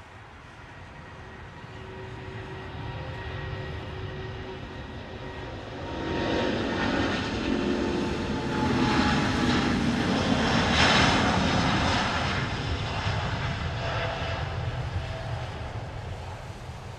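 Boeing 787-9's Rolls-Royce Trent 1000 engines at take-off power as the jet rolls past on a wet runway. The jet noise grows louder, peaks about two-thirds of the way in, then fades away, with faint steady tones that slide slightly lower in pitch as it passes.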